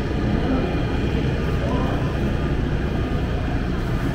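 A steady low rumble with indistinct voices mixed in.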